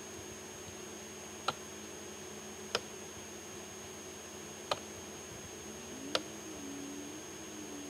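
Four single computer mouse clicks, spaced a second or two apart, over a steady faint electrical hum.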